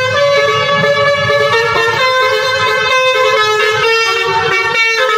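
Indonesian coach bus's multi-tone "telolet" air horn playing a tune: a long run of held horn notes stepping up and down in pitch.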